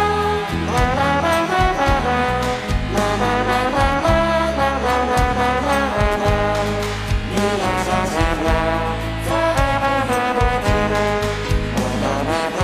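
Instrumental pop music with a brass-like lead melody over a steady bass line and drum beat.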